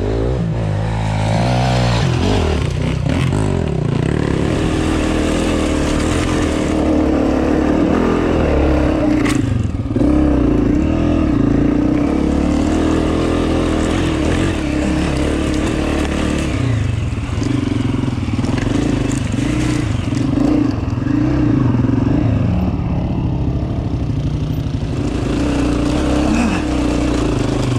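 Dirt bike engine running close up, revving up and down in pitch as the bike is ridden along a rough trail.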